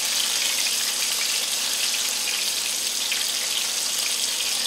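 Battered shrimp frying in hot oil in a skillet: a steady sizzle with light crackling.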